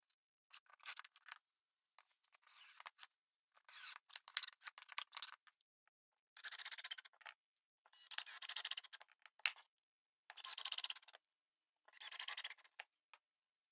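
Small brass screws clinking as a hand picks them up and sets them down, then a hand screwdriver driving screws into layered plywood in four turns of about a second each.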